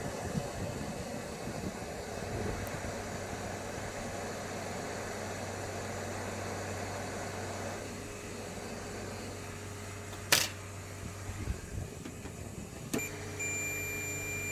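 A steady blowing hiss, as of a hot-air rework station, stops about eight seconds in, and a sharp click follows near ten seconds. From about thirteen seconds a multimeter's continuity beeper sounds one steady tone, signalling that the short on the USB 5 V line is still there.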